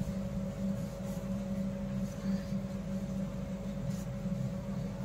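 A steady low hum throughout, with faint, soft rustling of cloth strips being handled and pulled through a loop into a chain.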